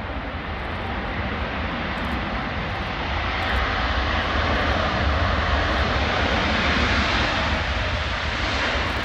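Boeing 777 airliner's twin jet engines running on its landing roll, a loud, dense rush that grows louder from about three seconds in and stays high near the end.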